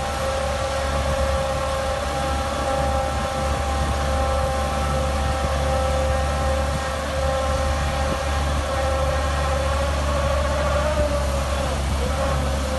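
Piling machine's engine running steadily, a low hum under a steady whine, with no hammer blows; the whine dips briefly in pitch near the end.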